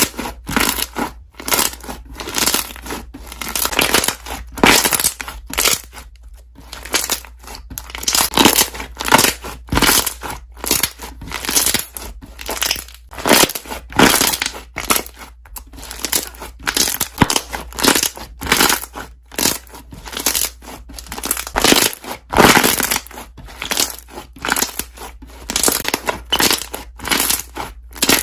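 Slime squeezed and pressed by hand, its trapped air bubbles popping and crackling in a steady run of short bursts, a few a second, with a brief lull about six seconds in.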